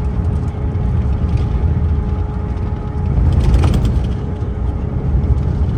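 A motor vehicle running, heard as a steady low rumble with a constant hum, which grows briefly louder and rougher about three and a half seconds in.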